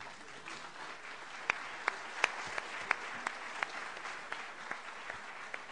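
Audience applauding, an even patter of clapping with a few sharp, louder single claps standing out. It tapers off near the end.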